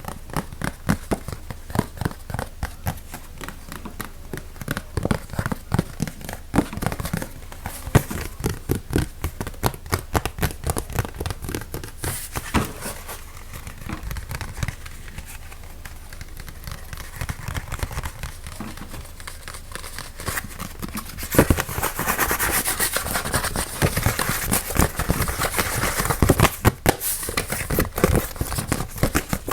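Fast ASMR triggers close to the microphone: rapid tapping and scratching clicks, then, about two-thirds of the way through, denser crinkling and crackling.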